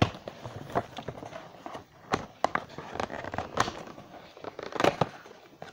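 Cardboard box with a clear plastic window being handled and pried open at its taped end: irregular crackles, clicks and crinkles of card and plastic.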